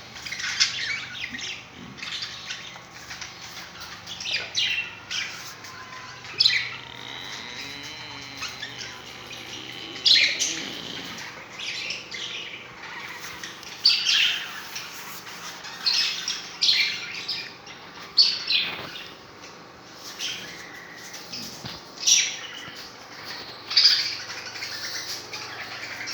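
A flock of caged budgerigars chattering and squawking, with short sharp calls coming every second or so, over a faint steady hum.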